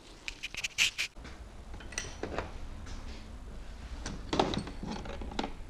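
Metal hand tools clinking and clattering as they are picked up and sorted: a quick run of sharp clinks in the first second, then a few more knocks and rattles later.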